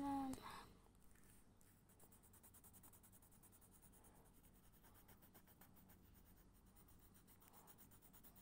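Red coloured pencil shading on lined notebook paper: faint, rapid, even back-and-forth scratching strokes.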